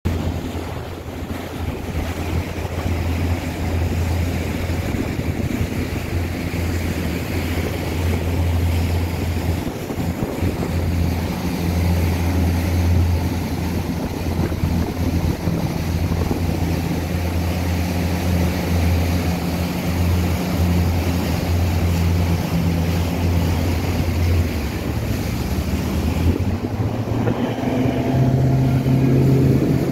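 Motorboat engine running steadily, with wind and water noise around it. Near the end the engine note rises as it speeds up.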